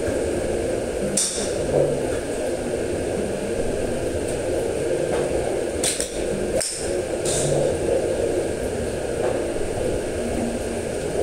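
Steady background hum of the golf range, with a few sharp clicks of golf clubs striking balls: one about a second in, then three between about six and seven and a half seconds.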